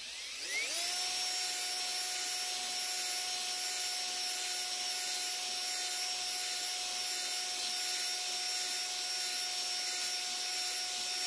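Cordless drill at low speed spinning an oiled stone cylinder hone in the bore of a Kohler M18 engine block, honing out light vertical scratches before new rings go in. It spins up in pitch during the first second, then holds a steady whine with a hiss.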